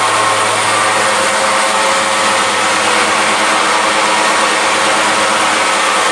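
Mini blast furnace for smelting lead battery scrap running, its air blast making a steady loud rushing noise over a low machine hum.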